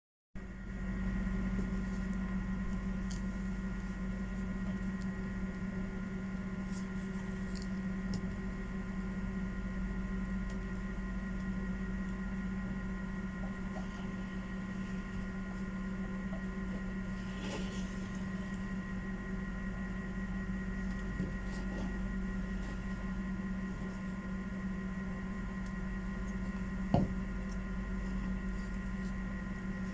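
Steady electrical machine hum with several constant tones and a low rumble, broken only by a few faint clicks and a short knock about 27 seconds in.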